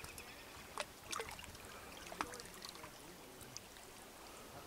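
Small lake waves lapping faintly at the shore and against a driftwood log, with a few brief slaps of water.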